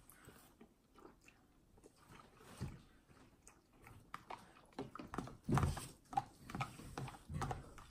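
A person slurping and chewing instant noodles, with a fork clicking and scraping in a plastic container. The noises come in irregular bursts, loudest about five and a half seconds in.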